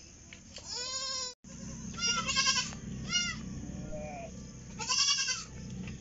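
Goats bleating: about four separate calls a second or so apart, the loudest near the middle and near the end.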